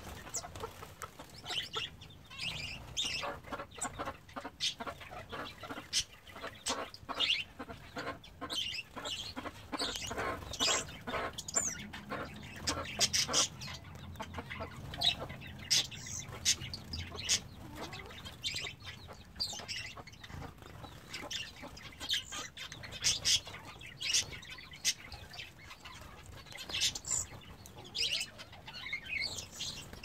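Hens clucking low in the background while small finches give many short, high chirps. Quick fluttering splashes come from finches bathing in a shallow water pan.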